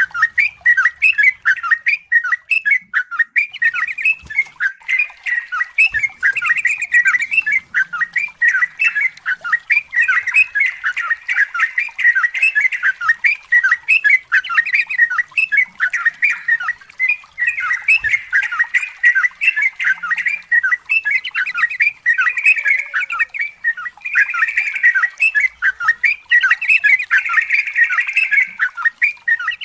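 Trucukan (yellow-vented bulbul) singing a long, unbroken run of rapid, bubbly chattering notes: the 'ropel panjang' song style prized by keepers.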